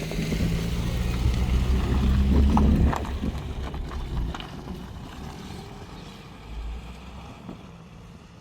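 Diesel freight train running past: a steady low engine hum with a rumble and a few sharp clicks. About three seconds in the engine hum drops away and the sound fades steadily.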